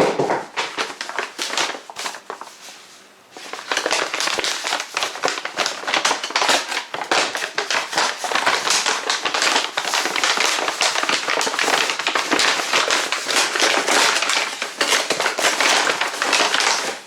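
Packing material crinkling and crumpling as a parcel is unwrapped by hand, with a short lull about three seconds in.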